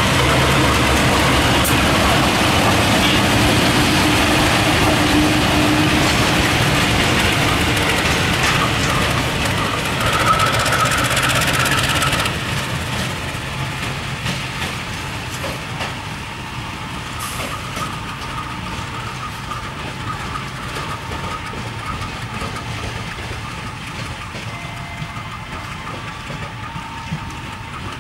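Train running on the rails, loud and steady for about twelve seconds, then a sudden cut to quieter station-yard sound of diesel locomotive engines running.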